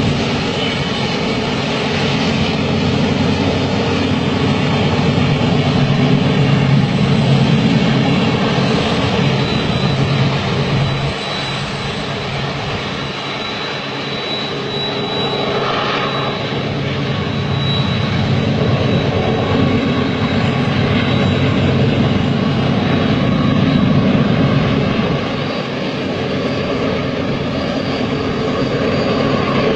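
Train running: a loud, steady rumble with a low droning hum. It swells and eases slightly, with a faint high whine at times.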